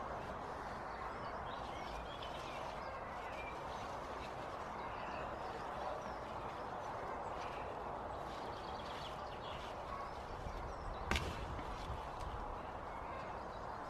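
Rhubarb stalks being pulled from the plant, with one sharp snap about eleven seconds in as a stalk comes away from the crown. Faint bird chirps over a steady low background hiss.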